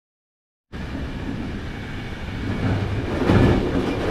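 Regional passenger train running along the track: a steady rumble of wheels on rails that cuts in suddenly from silence near the start and grows somewhat louder near the end.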